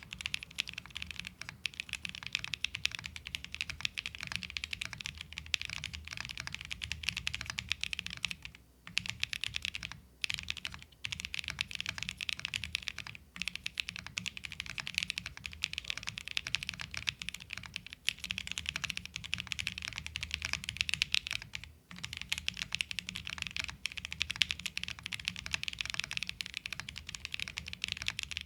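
Continuous fast typing on a keyboard fitted with KeyTok Black Classic Godzilla PBT dye-sub keycaps in Smile profile: a rapid stream of key clicks with a few brief pauses.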